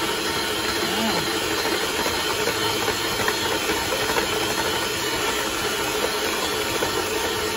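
Electric hand mixer running steadily, its beaters mixing flour into cookie dough, with a constant motor hum.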